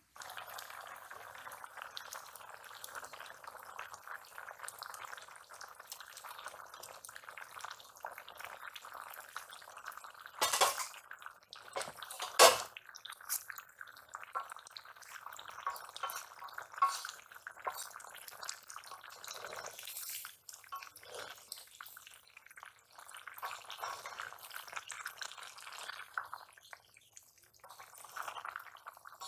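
Spinach and fish curry simmering in a metal wok over a wood fire, a steady fine bubbling, while a wooden spatula stirs it. There are two sharp knocks of the spatula against the pan, about ten and twelve seconds in.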